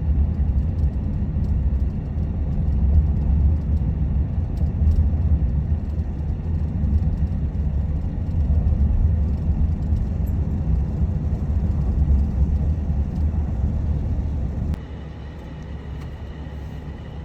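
Steady low road-and-engine rumble heard inside a moving minivan's cabin. About 15 seconds in it drops abruptly to a quieter rumble with a faint high steady tone.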